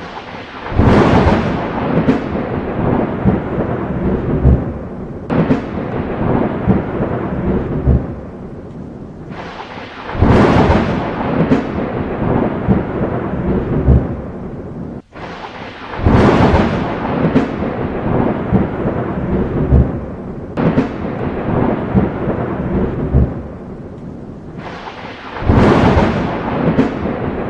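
Thunderstorm: steady rain with repeated claps of thunder, each rising suddenly and rumbling away over a few seconds. The same stretch of recording repeats after about fifteen seconds, with a brief drop-out at the loop seam.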